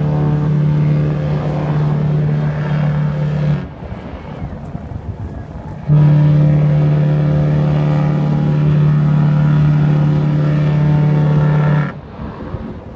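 Cruise ship's horn sounding two long blasts on a deep, steady note, the first about four seconds long and the second about six, with wind and water noise in the gap between them.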